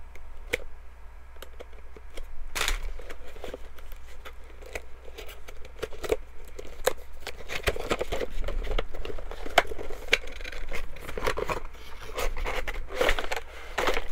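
A cardboard box and its packaging being opened and handled: irregular scrapes, taps and crinkling, busier in the second half.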